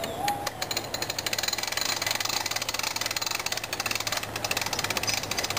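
ATV engine idling steadily, a rapid, even knocking over a low hum.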